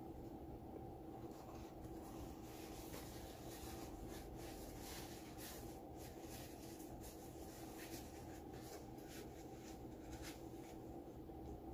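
Soft close-up mouth sounds of someone chewing food, a string of light clicks and smacks over a steady low hum.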